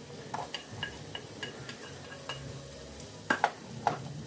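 Wooden spatula stirring chopped onion, garlic and ginger frying in oil in a frying pan, with a light sizzle and many small scraping clicks; a few sharper clacks against the pan a little past three seconds in.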